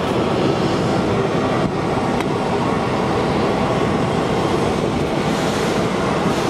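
Steady rushing noise of jet aircraft engines running on an airport apron and taxiway, with no distinct whine or changes.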